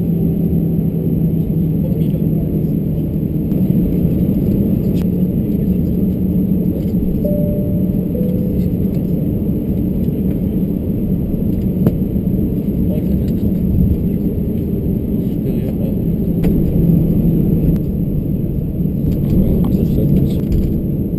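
Cabin noise of an Airbus A321-212 taxiing: its CFM56 engines at idle thrust with a steady low rumble and hum through the fuselage.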